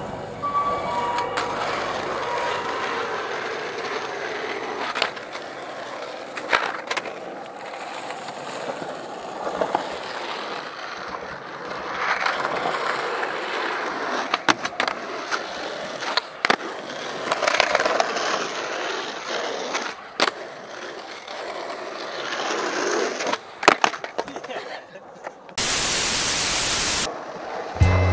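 Skateboard wheels rolling over rough tarmac, the rumble swelling and fading as the board passes, with sharp clacks of the board popping and landing. Near the end, a burst of steady hiss lasts about a second and a half.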